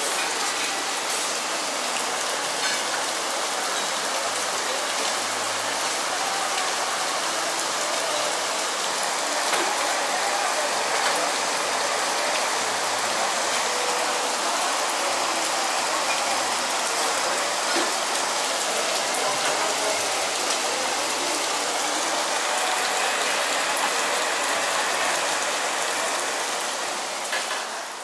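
Torrential tropical rain pouring steadily, a dense even hiss.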